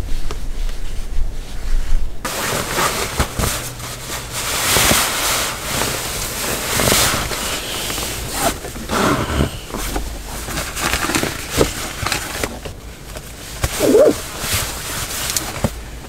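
Nylon down jacket and bedding rustling and brushing close to the microphone as a person shifts and reaches around inside a car, with occasional light knocks.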